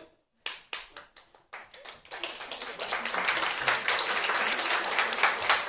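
Audience applauding: a few scattered claps at first, swelling after about two seconds into steady, dense applause.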